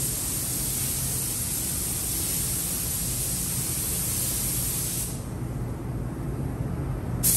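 Gravity-feed spray gun hissing as compressed air sprays a coat of clear base coat onto the car's body. The spray stops about five seconds in and starts again near the end, over a steady low hum.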